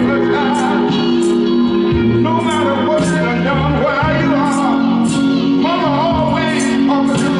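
Worship music: a voice singing a wavering melody over held chords, with a steady beat of crisp percussion hits.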